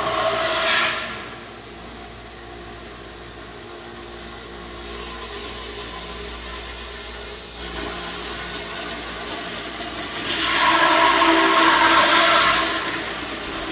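Robotic CNC router spindle milling EPS foam, a steady whirring cutting noise. It is louder for the first second, drops back, then grows loud again for a couple of seconds about ten seconds in.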